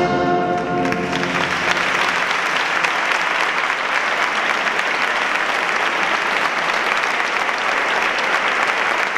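A wind band's final held brass chord ends about a second in, and the audience's applause takes over and carries on steadily.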